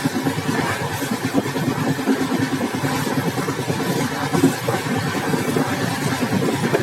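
Intercity superfast express running along the track, heard at an open exit door: a steady rumble of wheels on rails.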